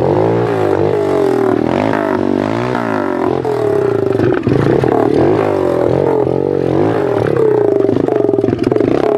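110cc pit bike's single-cylinder four-stroke engine, fitted with a fake Yoshimura exhaust, revving up and down repeatedly as the bike is ridden over gravel.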